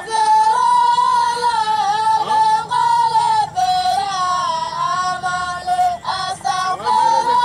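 A boy singing in a high voice, holding long notes that bend and slide in pitch.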